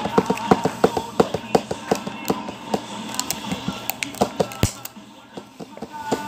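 A run of sharp clicks and taps, three or four a second, from small objects being handled close to the microphone. It thins out after about four and a half seconds, with one louder knock.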